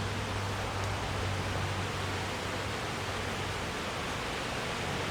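Honey bees of an open hive buzzing steadily, a constant hiss-like drone with a low hum under it.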